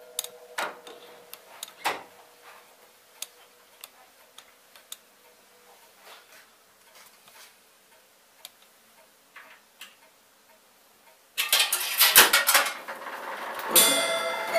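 Scattered clicks and knocks from the 1889 Atlantic Orchester orchestrion's mechanism between tunes. About eleven seconds in, the orchestrion starts its next tune loudly with a burst of percussion strikes, and pitched music joins near the end.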